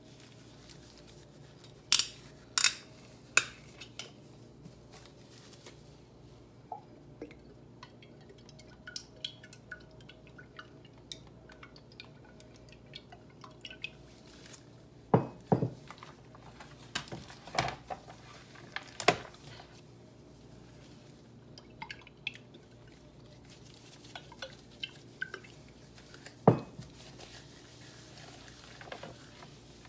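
Scattered clinks and knocks as a glass olive oil bottle and gloved hands handle squash halves on a metal baking sheet, the loudest a few seconds in, around the middle and near the end, over a faint steady hum.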